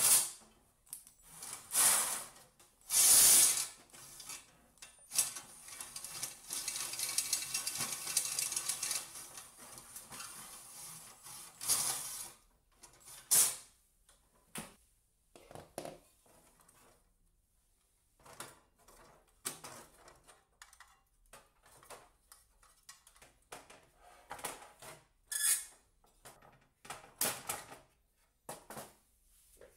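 12 V cordless drill-driver backing screws out of the metal casing of an electric convector heater, in short spurts and one run of several seconds. After that come scattered clicks and knocks as the metal grille and parts are handled.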